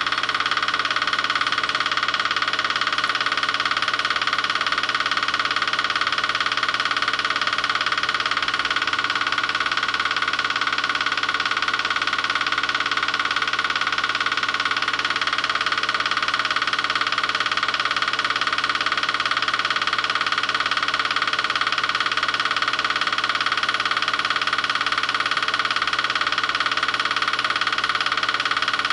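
8mm film projector running steadily, its motor and film-advance mechanism making an even, unbroken mechanical noise.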